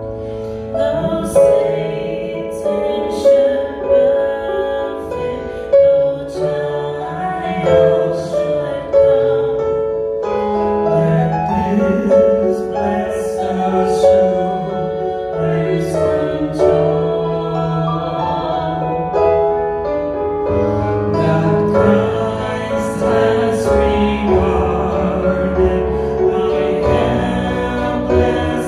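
A worship song: singing over piano or keyboard accompaniment.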